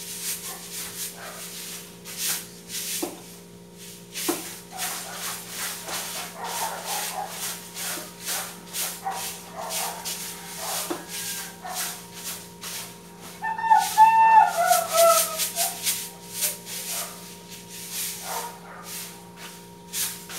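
Hand scrubbing at a kitchen counter: rhythmic rasping strokes, a couple a second, over a steady electrical hum. About two-thirds of the way through comes a brief wavering squeal, the loudest sound.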